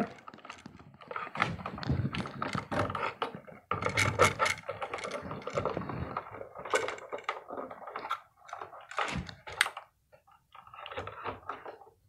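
Electrical wires being pushed and folded into a blue plastic wall box behind a dimmer switch: irregular rustling, scraping and clicking as the insulated wires and the switch body rub and knock against the box, pausing briefly a few times.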